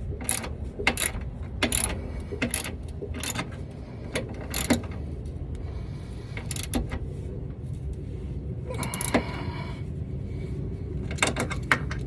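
Socket ratchet clicking in short runs of strokes while tightening 13 mm mounting bolts for a truck side step, with a short squeak about nine seconds in.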